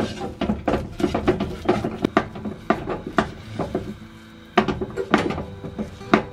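Silicone spatula stirring and scraping thick paste around a pot in irregular strokes, two to three a second, with a short lull about four seconds in. The paste is being cooked down until it is no longer sticky.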